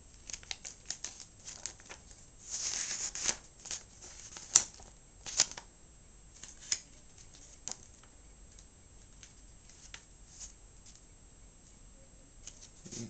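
Paper and packaging being handled: a stretch of rustling about two and a half seconds in, with scattered sharp clicks and taps throughout.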